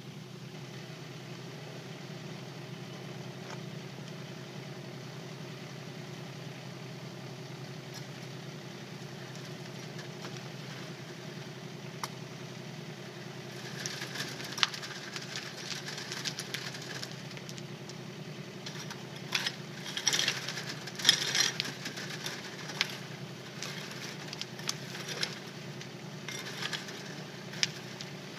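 Kubota K008-3 micro excavator's small three-cylinder diesel engine running steadily. From about halfway through, stony soil rattles and clatters irregularly, with the loudest clattering a little past two-thirds of the way in.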